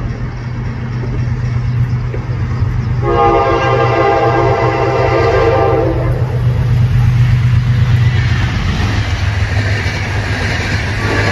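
General Electric diesel locomotive sounding a long horn blast of about three seconds over the steady low drone of its diesel engine. The engine grows louder as the locomotive passes close by, then the coaches roll past and the horn starts again at the very end.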